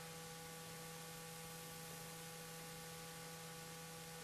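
Steady electrical hum with a faint hiss beneath it, a few constant tones and nothing else.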